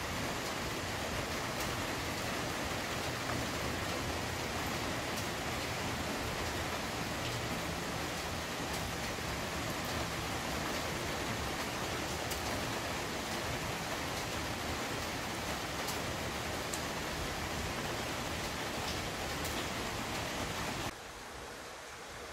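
Steady rain, a dense even hiss with faint scattered drop ticks. About 21 seconds in it cuts abruptly to a quieter stretch of rain.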